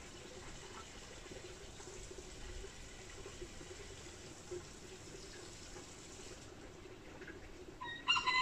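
Faint steady rushing noise, with a cat meowing near the end.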